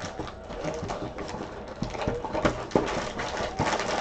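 Trading card boxes and their packaging being handled: a string of irregular taps and knocks on cardboard with rustling in between.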